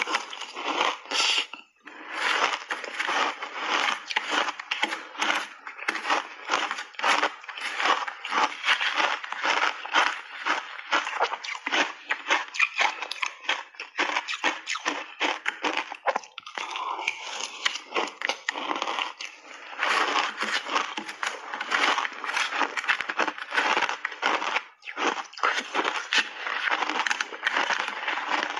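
Shaved ice coated in milk powder being chewed in big mouthfuls: loud, dense crunching of ice, with a few short breaks.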